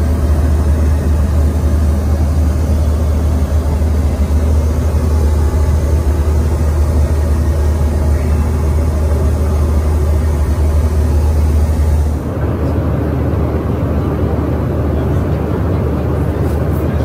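Steady engine and airflow noise heard inside the cabin of a Boeing 737-900 airliner, with a strong deep hum. About twelve seconds in, the sound changes abruptly and the deep hum drops away.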